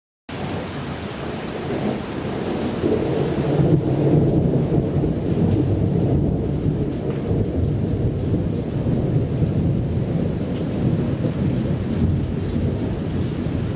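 Thunder rolling in a long, low rumble that swells about two to four seconds in and keeps rolling.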